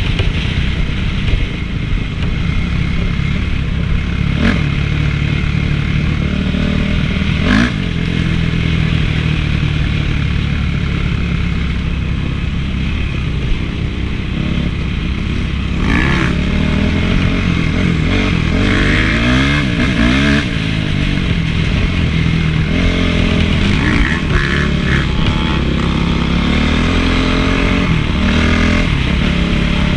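Honda CRF450 four-stroke single-cylinder motocross engine being ridden, revving up and easing off again and again, its pitch rising and falling, with a few sharp knocks.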